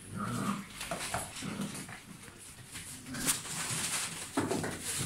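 Doberman puppies about six weeks old making small whines and low growls as they play together, with scuffling and rustling among them.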